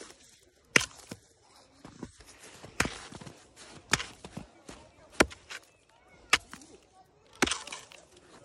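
Footsteps crunching in snow, about one sharp step a second, with a longer scuffing crunch near the end.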